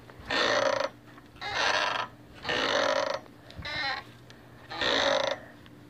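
Rocking swing creaking in a steady rhythm as it swings back and forth: a drawn-out creak about once a second, each lasting about half a second, one of them weaker near the middle.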